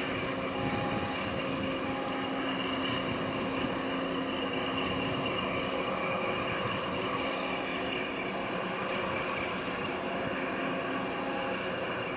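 Harbour tug's diesel engines running steadily as it pushes against a container ship's hull: a continuous drone with several steady humming tones over a rushing noise.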